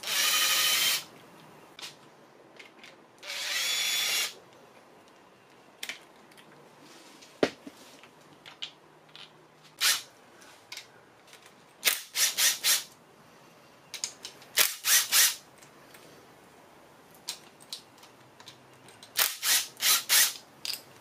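Cordless Makita impact driver backing out bolts on the front of a Honda K24 engine's timing-chain area. It runs for about a second at the start and again around three seconds in, then fires in short quick trigger bursts, three at a time, twice in the middle and several times near the end, with small clicks of metal parts in between.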